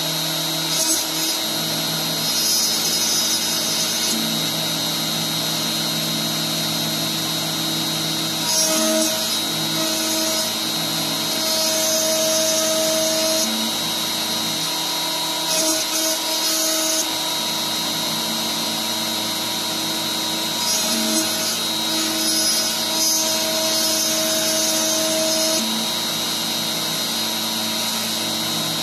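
CNC trim-router spindle running at a steady high whine while it mills a truss rod channel in a wooden guitar neck. Louder cutting noise swells and falls away in stretches as the bit moves along its passes.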